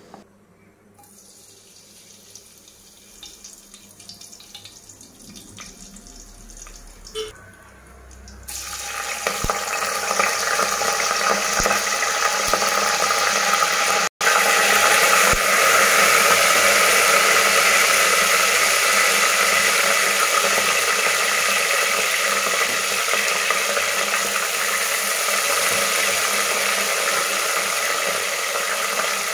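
Oil pouring faintly into an aluminium pressure cooker, then, about a third of the way in, loud steady sizzling as curry leaves and whole spices fry in the hot oil, with a brief break near the middle.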